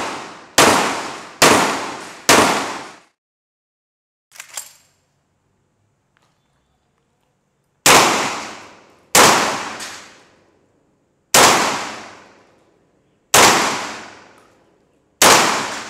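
Sulun Arms SG-105 bullpup shotgun firing. Three quick shots, then after a pause a short clank, then five more shots spaced a second and a half to two seconds apart, each trailing off in a ringing echo.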